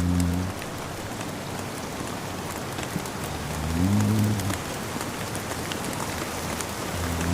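Steady rain falling, with a man snoring in slow, low-pitched snores about every three and a half seconds: one trailing off at the start, one about halfway through and another beginning near the end.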